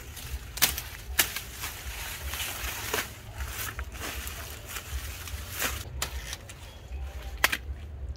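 Dry corn stalks and leaves crackling and rustling as they are handled and broken, with five sharp snaps spread through.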